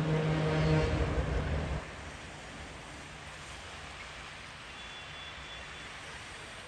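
Train horn sounding and cutting off about a second in, then the low rumble of the passing diesel train. The rumble drops after about two seconds to a steady, quieter running sound.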